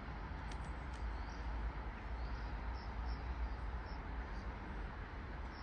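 Outdoor railway-station background: a steady low rumble and hiss, with short high chirps of small birds repeating through it.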